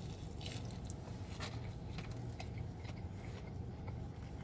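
A person chewing a bite of fried chicken tender, with scattered small crunches and mouth clicks over a low steady hum.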